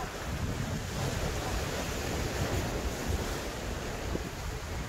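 Strong wind buffeting the microphone in gusty low rumbles, over the steady wash of sea waves against rocks.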